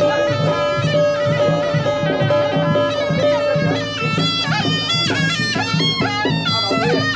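Taiwanese temple music led by a shrill suona, a double-reed horn. It holds one long note for the first few seconds, then plays a run of quick stepping notes over steady drumming.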